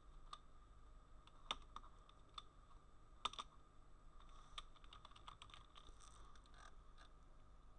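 Faint computer keyboard typing: scattered single keystrokes, then a quicker run of key clicks in the second half.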